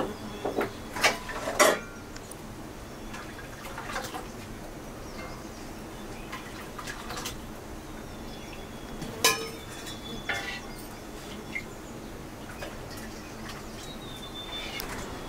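A metal ladle clinking against a wok and steel serving bowls as food is dished out. There are a few quick knocks in the first two seconds, then scattered single clinks.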